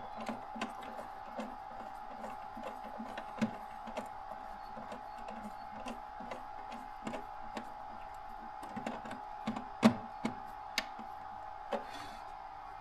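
Small clicks, scrapes and rustles of hands and a tool working a shielded motor cable, pulling back its plastic jacket, with one louder click about ten seconds in. A steady thin tone runs underneath.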